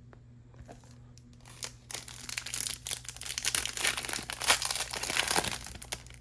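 A trading-card pack wrapper being torn open and crinkled, starting faintly and becoming a dense crackle about two seconds in.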